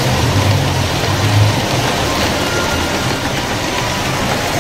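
Model trains running on the layout's track: a steady rumble of wheels and motors, with a low hum that wavers in pitch.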